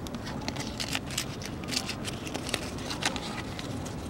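A small folded slip of paper crinkling and rustling as it is unfolded by hand: a string of sharp, irregular crackles over a steady low background noise.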